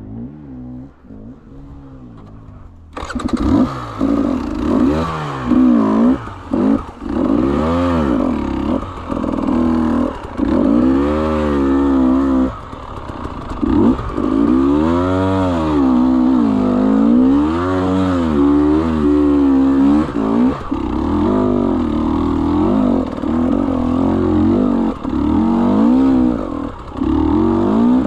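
KTM 300 two-stroke enduro motorcycle engine being ridden hard, revved up and down again and again as the throttle is opened and closed. It sounds muffled for the first few seconds, then turns abruptly louder and fuller about three seconds in.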